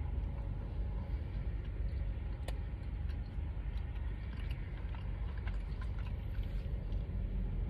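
A person chewing a mouthful of toast sandwich, with small wet mouth clicks and smacks over a steady low rumble.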